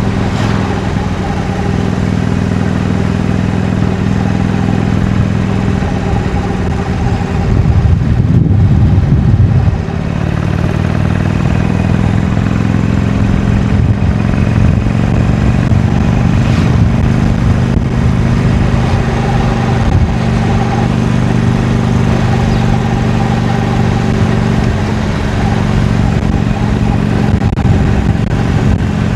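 Harley-Davidson Iron 883's air-cooled V-twin with stock exhaust running steadily under way. About eight seconds in it swells louder for a couple of seconds under more throttle, then drops back to a steady cruise.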